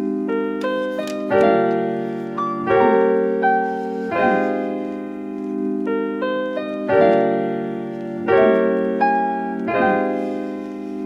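Background music: electric piano playing a repeating chord pattern, a new chord struck about every second and a half.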